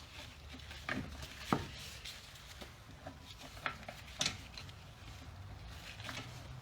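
A few scattered sharp clicks and knocks from tools and metal parts being handled while bolts are threaded in by hand during a brake job. The loudest come about one and a half seconds in and just after four seconds.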